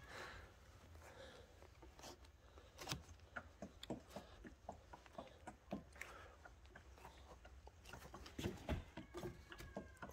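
Faint scattered clicks and rubbing of a rubber handlebar grip, slick with dish soap, being pushed and twisted onto an ATV handlebar.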